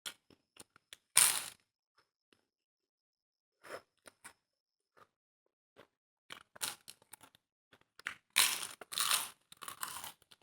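Close-miked eating sounds: crunchy bites and chewing in short separate bursts, with a loud crunch about a second in and a cluster of louder crunches near the end.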